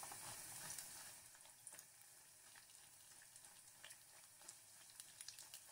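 Faint sizzling of hot oil around a cream-filled yeast doughnut that is deep-frying, a little louder in the first second, with scattered small crackles after.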